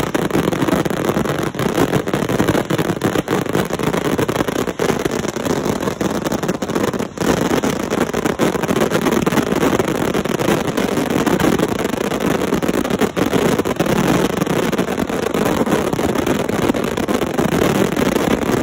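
Several 500-gram consumer firework cakes firing together in a dense, unbroken barrage, launch thumps and bursting crackle running into one another with no pause.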